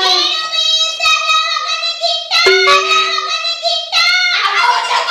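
High-pitched wordless singing, held in long drawn-out notes like a child's voice, with a steady low tone under it for about a second halfway through.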